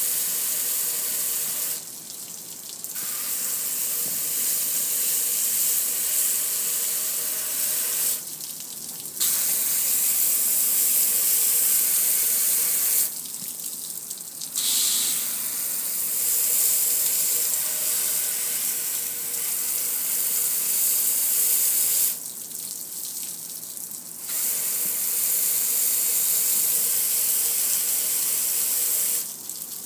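Water spraying from a garden-hose nozzle on its shower setting, hissing and splattering onto a metal gas grill. The spray stops for a second or two five times.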